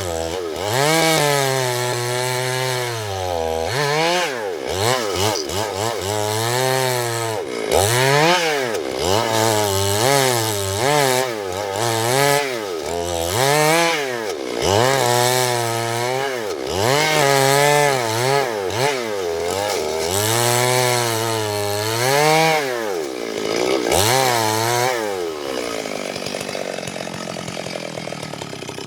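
Two-stroke chainsaw engine, revved up and falling back again and again, about once every one to two seconds. A little after 25 seconds the revving stops and a steadier, rougher, lower sound is left.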